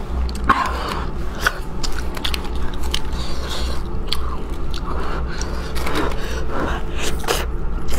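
Close chewing and the wet tearing of a braised whole chicken pulled apart by hand, with scattered short crackles, over a low steady hum.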